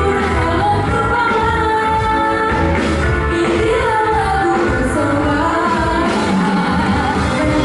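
A music group playing and singing an Indonesian song, with a sung melody over a steady band accompaniment.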